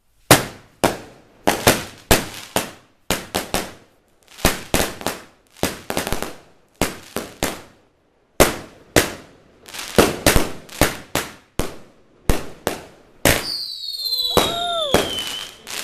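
Fireworks going off: a long run of sharp, irregular bangs, about two a second, with a short pause partway through. Near the end a firework whistles, its pitch falling.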